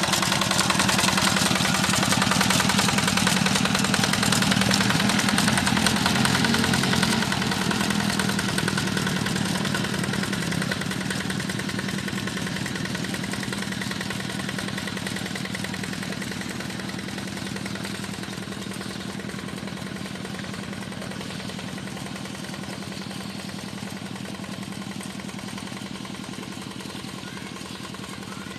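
Engine of a tractor plowing a rice paddy, running steadily at an even pitch and fading gradually as it moves away.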